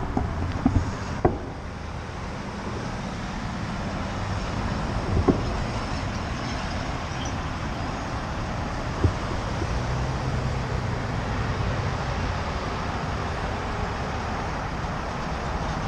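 Steady wind and road noise while riding a bicycle, picked up by a GoPro mounted on the bike, with a few sharp knocks about one, five and nine seconds in.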